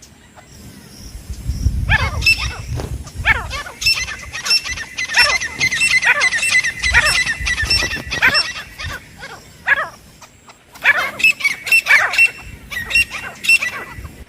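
Teetar (francolin) calling: a rapid run of loud, repeated calls with quickly falling notes and held high notes, starting about two seconds in. There is a short break, then a second run of calls near the end.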